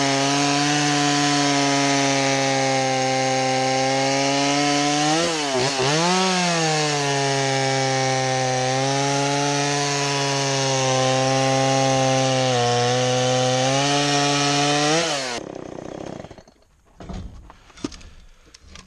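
Two-stroke chainsaw running at high revs, cutting wood. Its pitch dips sharply and recovers about five seconds in as it loads up in the cut. It cuts off suddenly about fifteen seconds in, and a few light knocks follow.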